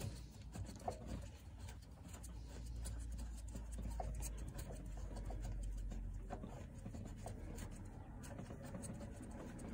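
A plastic nut being unscrewed by hand along a threaded rod: a quiet run of small scratchy ticks and rubbing from the threads.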